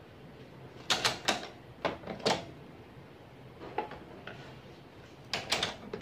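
Sharp plastic clicks and knocks of toner cartridges being unlatched and slid out of an HP Color LaserJet MFP178nw colour laser printer, in several short groups.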